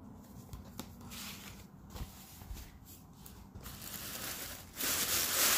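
Faint rustling at first, then about five seconds in a louder, continuous crinkling of tissue-paper stuffing being handled inside a leather tote bag.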